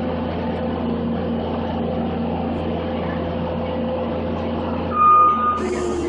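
New Holland skid steer's diesel engine running steadily, with a single high beep of its backup alarm about five seconds in as it starts to reverse, followed by a short hiss.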